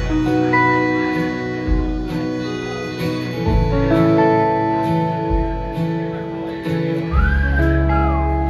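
Live band playing an instrumental passage: strummed acoustic guitar and electric guitar over bass notes and drums, with a gliding high note near the end.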